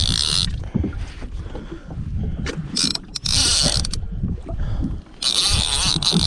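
Fishing reel drag screaming in three bursts, about a second each, as a hooked Spanish mackerel pulls line, over a steady low rumble of wind and water on the microphone.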